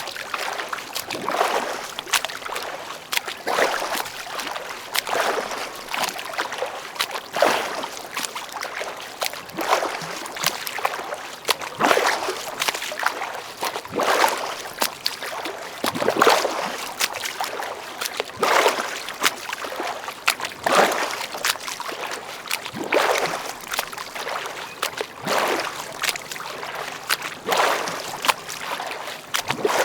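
A swimmer's freestyle strokes splashing and churning the water in a steady rhythm, a stronger splash about every two seconds with lighter ones in between.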